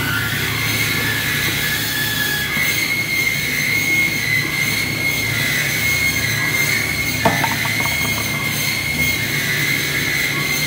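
Cosen C-520-NC industrial band saw running and cutting steel shafting: a steady high-pitched whine over a low machine hum. A single sharp metallic clank with brief ringing comes about seven seconds in.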